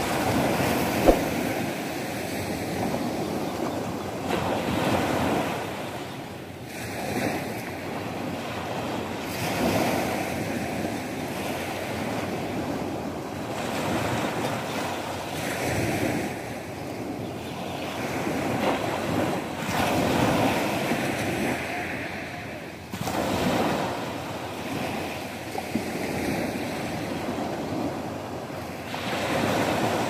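Small waves breaking and washing up a sand-and-pebble beach, the surf swelling and easing every few seconds. A single sharp click about a second in.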